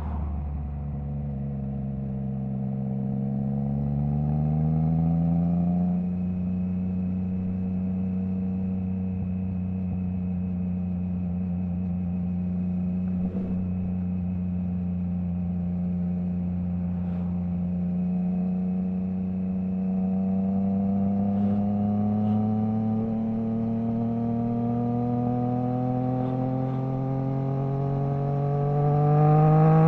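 Triumph Trident 660 inline-three engine through a Zard stainless full exhaust with the baffle removed, pulling up through the revs and changing up a gear about six seconds in. It then runs at a steady speed before climbing in revs again, faster near the end.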